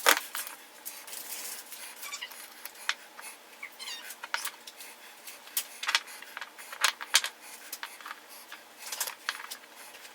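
Irregular light clicks and knocks of small hard objects being handled, with a few faint high chirps about four seconds in.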